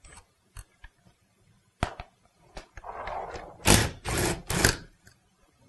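Cordless drill-driver with a 10 mm socket spinning out a seat-frame bolt in three short trigger bursts, a little under a second in all, about four seconds in. Light clicks of metal parts and a brief rustle come before it.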